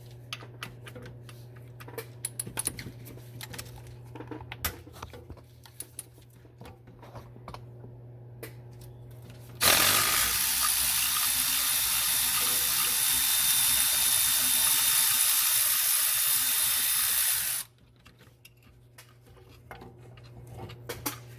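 Hand tools working on a bolt under a truck's hood: scattered metal clicks and clatter over a steady low hum. About ten seconds in, a loud, steady hissing rush starts, lasts about eight seconds and cuts off suddenly, followed by a few more faint clicks.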